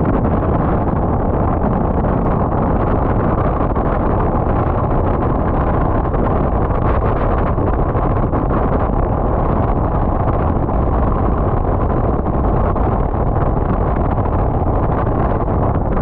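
Steady rush of wind on an action camera's microphone, mixed with road noise from a motorcycle cruising at an even speed. The wind noise is loud and unbroken, and no clear engine note stands out.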